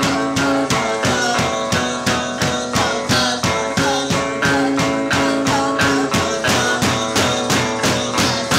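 Live song: a guitar strummed in a quick, steady rhythm, with a woman singing into the microphone.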